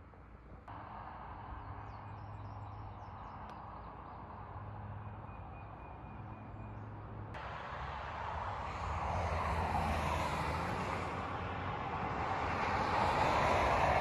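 A vehicle on a nearby road approaching, its engine and tyre noise growing steadily louder through the second half, over a steady outdoor background drone.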